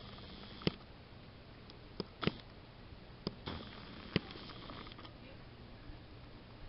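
Quiet room tone with about five scattered short, sharp clicks and taps over several seconds.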